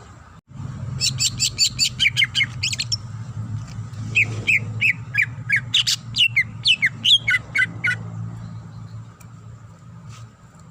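Greater green leafbird (cucak ijo) singing a fast, varied song: a quick run of sharp high notes, then a slower string of slurred, falling whistles, fading out near the end. A steady low hum runs underneath.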